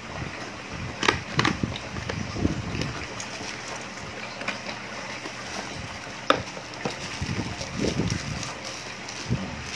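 Handling of packaging as an aquarium air pump is unboxed: a cardboard box opened and the pump in its plastic bag handled, with rustling and crinkling and a few sharp clicks and knocks.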